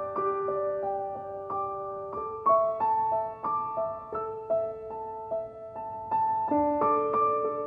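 Background music: a slow, gentle melody of ringing keyboard notes struck one after another, about two a second.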